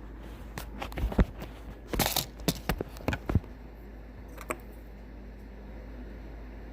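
Small plastic clicks and scrapes of a Caddx Tarsier camera's cable plug being pushed against its connector socket without seating. There is a quick cluster in the first three and a half seconds and one more click about four and a half seconds in. The owner suspects the plug or the socket housing was molded wrong and is too big.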